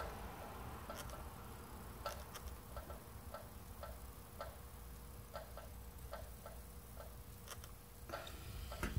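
Faint, light clicks at irregular spacing, about two or three a second, over a low background rumble and a faint steady hum.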